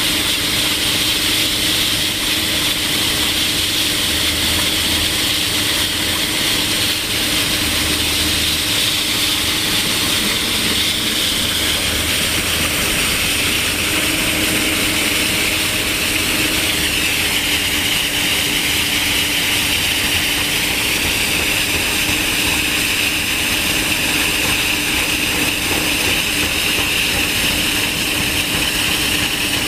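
Excavator-mounted saw attachment with a large hydraulically driven circular blade cutting through rock, a loud, steady grinding whine. The excavator's engine and hydraulics run underneath, and the whine drops slightly in pitch about halfway through.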